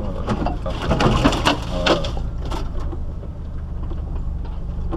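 Off-road 4x4 crawling slowly over a rough, rocky track, its engine running low and steady. A cluster of knocks and crunches from the wheels and body working over the stony ground comes in the first couple of seconds, loudest about a second in.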